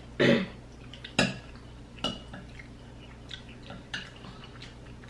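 Utensils clinking and knocking against plates and bowls at the table: several separate sharp knocks, the loudest near the start, then others roughly a second apart.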